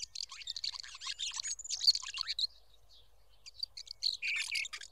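Birdsong: rapid, high chirps and twitters from small birds, which stop for about a second midway and then start again.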